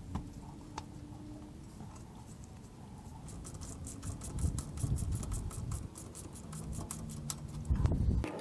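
Hand work on a vehicle's rear axle while a wheel speed sensor is fitted: light scraping and handling noise, then a quick run of small clicks from about three seconds in, with a few dull knocks, the heaviest near the end.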